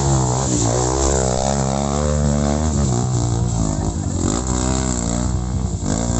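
Off-road trail motorcycle engine revving hard, its pitch rising and falling several times as the throttle is worked on a steep climb.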